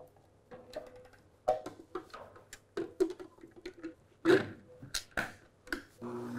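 Plastic lid and motor head of a small food processor being fitted and clicked into place on its glass bowl: a string of sharp clacks and knocks, the loudest about four seconds in. Near the end the motor switches on and runs with a steady hum.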